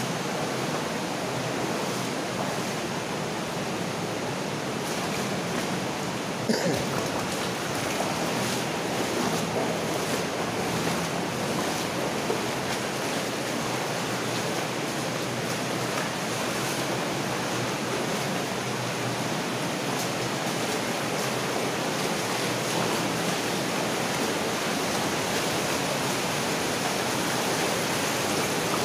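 Steady rushing of water running through a stone-lined mine culvert, with a sharp knock about six seconds in.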